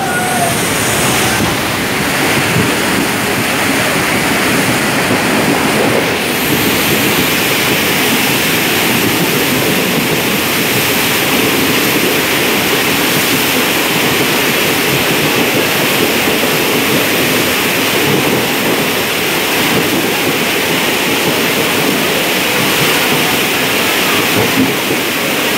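Steady, loud rush and wash of water as a passenger train moves through floodwater covering the tracks, mixed with heavy rain.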